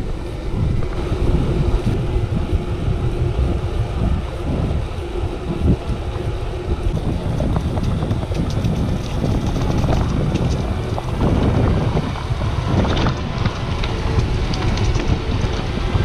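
Wind buffeting the microphone of a chest-mounted GoPro on a moving mountain bike, a steady low rumble mixed with road and tyre noise. A few short clicks come in the second half.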